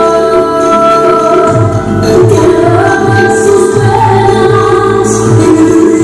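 Music with a group of voices singing long held notes; a low drumbeat comes in about a second and a half in.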